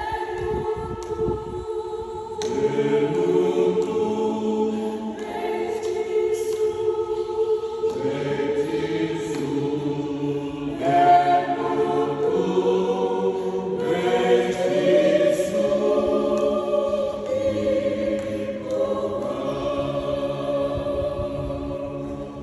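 Many voices singing a hymn in Fijian in harmony, with long held notes in phrases a few seconds long.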